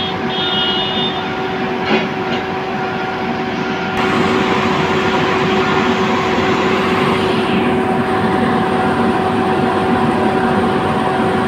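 Heavy diesel construction machines running steadily, a low engine drone with a steady hum-like tone over it. The sound gets suddenly louder about four seconds in.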